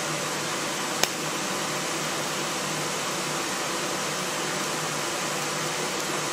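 PrimeWeld TIG325x TIG welder at work: a sharp click about a second in as the arc strikes, then a steady hiss of the arc over the welder's cooling fan. No electrical static is picked up from the arc.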